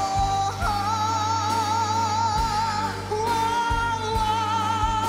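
A young girl singing a slow ballad, holding two long high notes with vibrato in turn, over band accompaniment with a steady bass.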